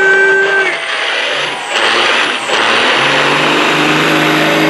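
Semi truck's diesel engine running at full power as it drags a truck-pull sled, a loud, dense roar with a high whine above it that rises and dips twice.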